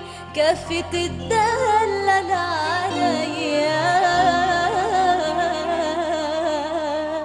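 Live Arabic tarab music: an ornamented, wavering melody line over a steady low bass, with a few sharp percussive hits in the first second or so.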